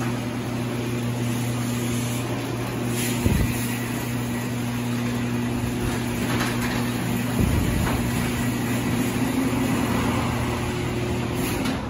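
Chamberlain AC chain-drive garage door opener running a door, a steady loud motor hum with the chain's rattle, and two brief knocks about three and seven seconds in. Definitely not quiet.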